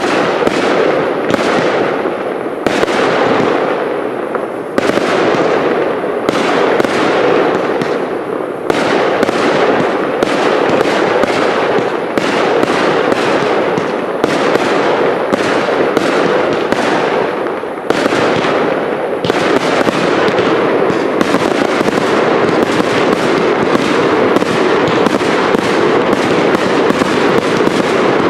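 Fireworks cake batteries firing in quick succession: a dense, unbroken run of bangs and pops that starts suddenly and keeps up without a pause.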